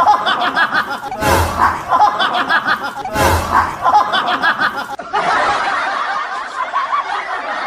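People laughing and snickering, loud, in bursts that start again about every two seconds, with a different stretch of laughter from about five seconds in.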